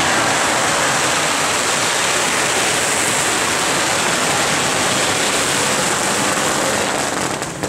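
A long string of firecrackers going off in a dense, unbroken crackle, cutting off near the end.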